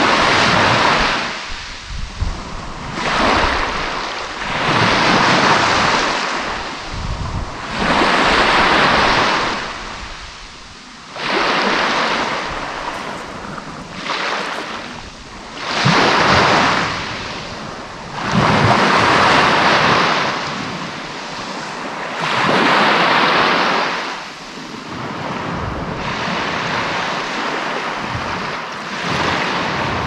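Surf of the Sea of Azov washing onto the shore, a wave swelling and falling away every three to four seconds, with wind buffeting the microphone.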